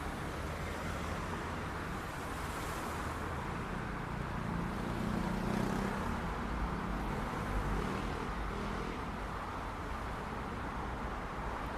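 City street traffic: a steady wash of passing cars and tyre noise, with one vehicle's engine hum rising and passing by around the middle.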